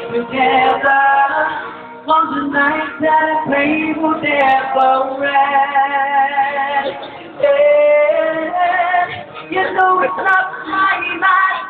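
Amplified singing through a microphone over backing music, the voice holding long notes and sliding between them.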